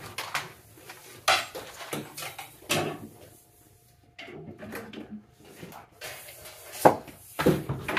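Several sharp knocks with rubbing and scraping in between, as a wire-pulling fish rod and a thick 6/3 electrical cable are pushed and pulled over a pipe and the ceiling joists.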